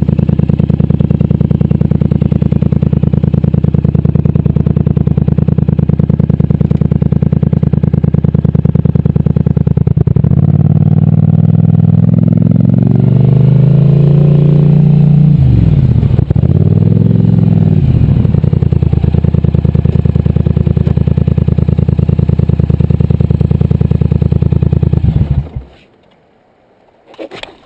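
Polaris Sportsman 850 HO ATV's twin-cylinder engine running steadily, revving up and down several times in the middle, then cutting off abruptly near the end.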